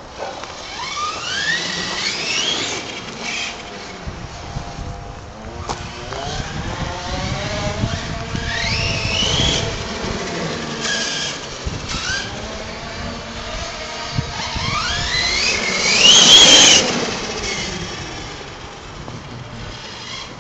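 Radio-controlled off-road car's motor whining as it accelerates, its pitch rising steeply three times, with the loudest and highest run near the end as the car comes close.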